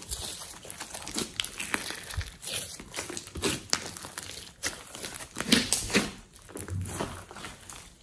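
Hands squeezing and stretching thick clay slime: irregular sticky crackles and small air-bubble pops, loudest about five and a half to six seconds in.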